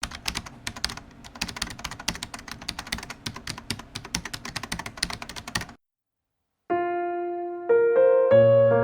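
Rapid, irregular clicking of keys being typed on a keyboard for about six seconds, stopping abruptly. After a short silence, piano chords begin near the end, stepping upward.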